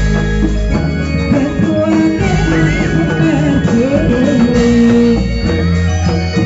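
Live Reog Indramayu ensemble music: hand drums and cymbal under a wavering melody line, over a steady bass.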